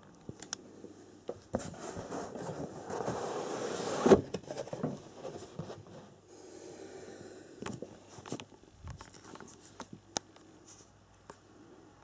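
Cardboard kit box being handled: the printed sleeve is slid off the plain box with a rising scraping rub that ends in a thump about four seconds in. Scattered taps, clicks and a short rustle follow as the box is opened.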